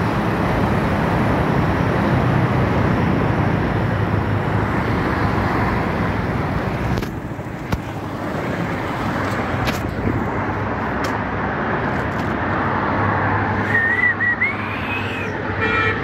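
Wind and road noise from a vehicle travelling at speed, a steady rush with a low engine hum. About seven seconds in it drops to quieter roadside traffic noise, with a short wavering whistle rising in pitch near the end.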